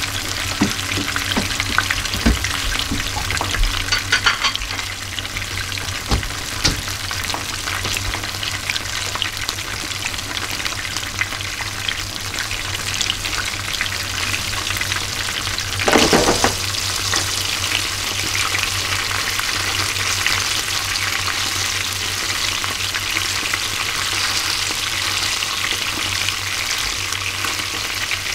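Small Japanese surf smelt (chika) deep-frying in hot oil without batter: a dense, steady crackle and sizzle, with a few sharper pops in the first several seconds and a louder, fuller burst of sizzling about sixteen seconds in.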